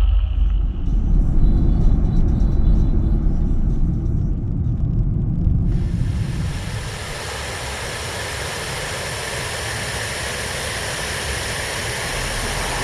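Wind buffeting the microphone with a heavy low rumble. About six seconds in it switches abruptly to a steady, even hiss.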